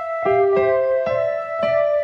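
Music: a simple piano or electric-keyboard melody, a new note about every half second, over a soft low beat.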